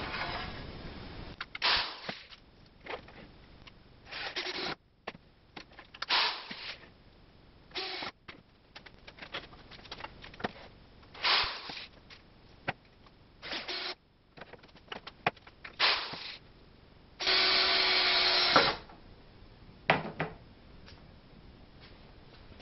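A power drill driving screws through a metal angle bracket into a wooden table frame, in a string of short bursts with one longer run of about a second and a half near the end, among clicks and knocks of handling.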